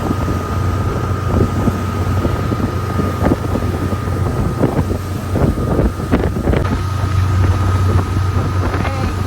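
Motorboat engine running steadily under way: a low steady hum with a thin whine over it. Wind buffets the microphone, in gusts that are heaviest in the middle.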